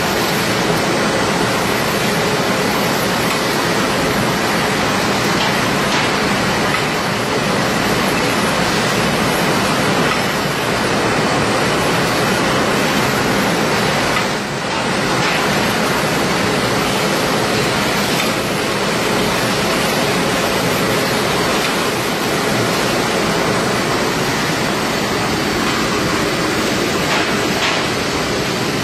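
Automatic cartoning machine on a packaging line running: a steady, dense mechanical clatter and hum from its chain conveyors and carton-loading stations, with a brief dip about halfway through.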